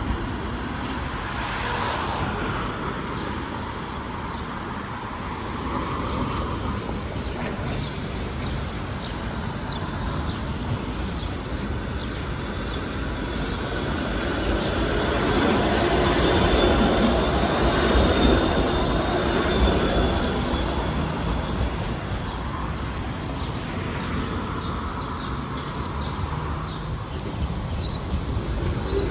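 TTC streetcar running on its rails, with a thin high wheel squeal through the middle and the running noise swelling louder for a few seconds past the halfway point.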